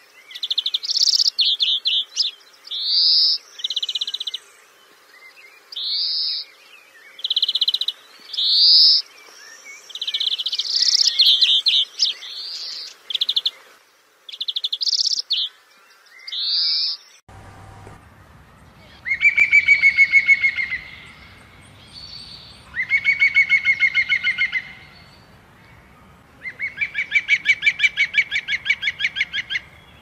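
Songbirds singing: a string of short, clear rising whistles and quick trilled phrases. About 17 seconds in, the sound cuts to a different recording of a bird giving three long, rapid rattling trills.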